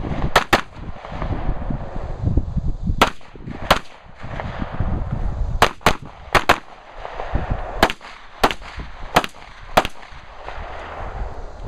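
AR-15 rifle firing about a dozen shots in a string: several quick pairs with pauses of a second or two between them, as the shooter works through targets on a timed stage.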